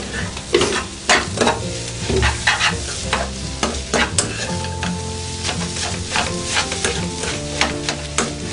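Steel spoon scraping and stirring an ivy gourd and egg stir-fry in a non-stick frying pan, the food sizzling, with quick repeated scrapes that are strongest in the first half. The fry is being cooked down until it turns dry and crumbly. Background music plays underneath.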